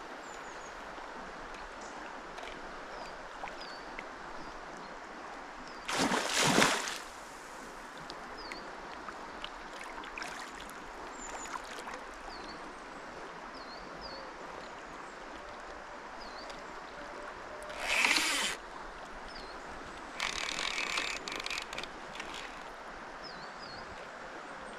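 River water running steadily, with small birds chirping now and then. Three loud, rushing bursts of noise break through, about six seconds in, at eighteen seconds, and a longer, ragged one around twenty to twenty-two seconds.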